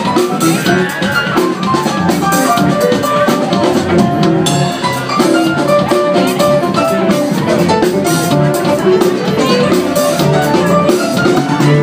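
Live funk band playing an instrumental number: drum kit, electric guitar and bass guitar, with short bright melodic notes over a steady groove.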